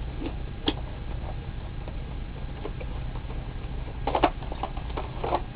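Plastic and cardboard packaging being handled while it is opened: scattered small clicks and crinkles, with a denser run of clicks about four seconds in, over a steady low hum.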